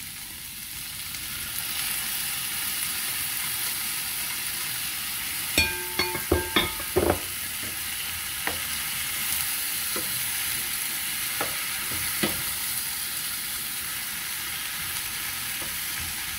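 Zucchini slices and tomato sizzling in butter and oil in a pan, stirred with a plastic spoon; the sizzle grows louder in the first two seconds. A quick cluster of ringing knocks against the pan about six seconds in, then a few single taps.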